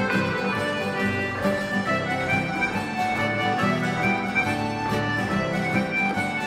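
Live traditional Manx dance tune played on accordion, running on without a break.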